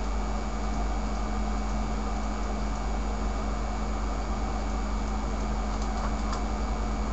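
Steady background hum and hiss with a constant low tone, and no distinct events.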